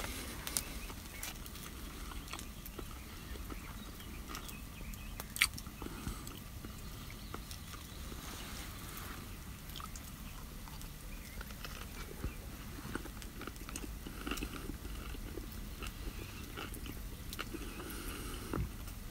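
Wood fire crackling with scattered sharp pops, one louder pop about five seconds in, over a soft steady patter of rain on the canvas tent.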